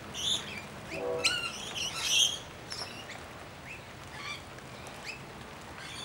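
A mixed flock of Australian honeyeaters and lorikeets feeding on the ground: scattered short chirps and squawks, loudest around one and two seconds in, with one brief nasal honk-like call about a second in.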